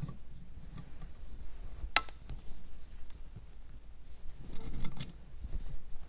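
Steel pliers and a snap ring clicking and clinking against the metal compressor housing of a Holset HX35 turbo as the clip's ends are squeezed and the ring is pressed around the bearing housing to seat it in its groove. One sharp click about two seconds in and a cluster of lighter clicks near the end.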